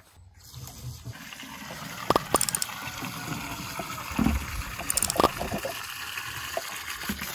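Water running from a plastic storage tank's tap into a plastic jerrycan, a steady filling rush that builds up just after the start. A few sharp knocks come about two seconds in and again about five seconds in.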